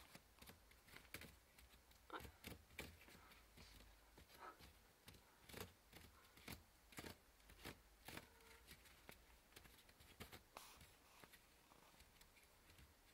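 Faint, irregular clicks and scratches of a kitten's claws catching on a wicker laundry basket and its cloth lining as it plays, with a hand brushing the basket.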